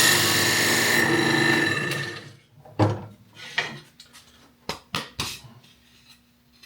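A drill with a 3.5-inch hole-saw bit cutting through a wooden shiplap board, running steadily, then winding down and stopping about two seconds in. A few separate knocks and taps of wood follow.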